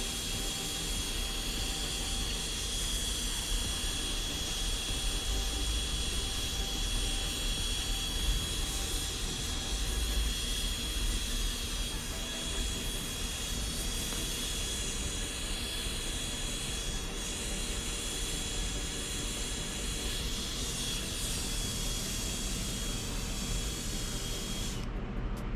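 Blowtorch flame hissing steadily on a diesel heater burner, burning off its carbon deposits. The hiss cuts off about a second before the end as the torch is shut off.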